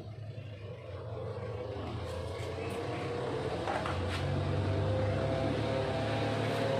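An engine running steadily with a low hum, growing gradually louder, with a few light clicks in the middle.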